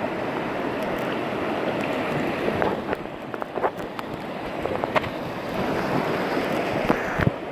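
River rapids rushing around an inflatable kayak, with several short splashes and knocks against the hull over the second half.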